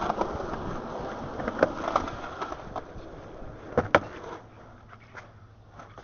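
Skateboard rolling, its wheel noise fading away, with sharp clacks of the board. The loudest are two close together about four seconds in.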